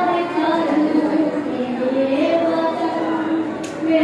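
A boy singing a poem solo into a microphone, holding long notes that slowly rise and fall in pitch.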